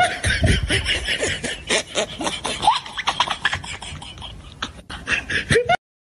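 A person laughing hard in rapid breathy bursts with short squeaky rises in pitch. It cuts off abruptly near the end.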